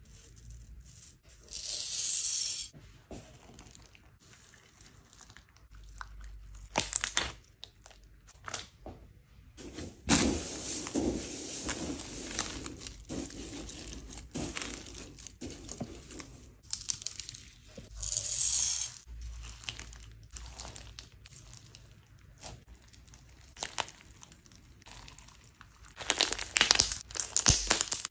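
Slime being squeezed, stretched and pulled apart by hand, giving dense runs of small crackles and pops in irregular spells. The loudest spells come about two seconds in, around ten seconds in, around eighteen seconds in and near the end, with quieter handling between.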